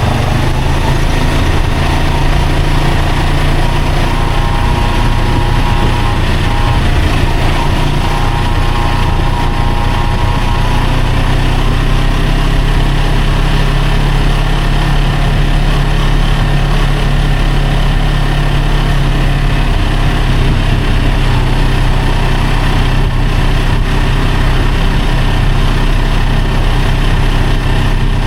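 Vehicle engine running steadily while driving in traffic, with road noise. A faint higher tone rides over it for roughly the first ten seconds.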